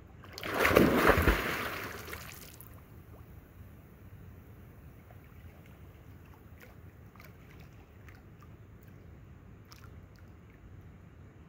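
A person plunging headfirst into a lake: one loud splash about half a second in that fades over the next two seconds, then only faint water sounds with a few small ticks.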